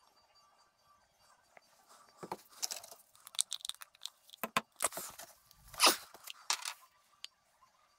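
Irregular crinkling and crunching handling noise from gloved hands working plastic containers. It starts about two seconds in and is loudest about six seconds in.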